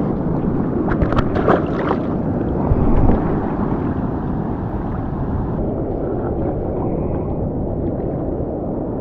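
Steady low rumble of a motorised vehicle under way.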